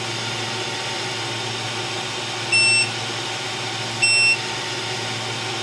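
Mecpow X4 Pro laser engraver beeping: two short, high electronic beeps about a second and a half apart over a steady machine hum. The beeping is the warning it gives when its cover is left open.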